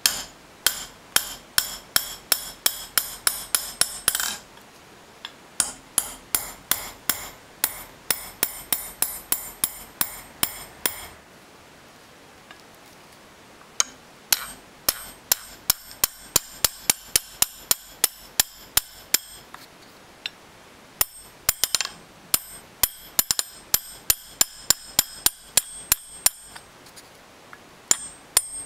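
Small hammer tapping a steel punch into a Japanese sword's steel tang to cut the signature (mei-kiri). Quick ringing metallic taps, about three a second, come in runs of several seconds with short pauses between them.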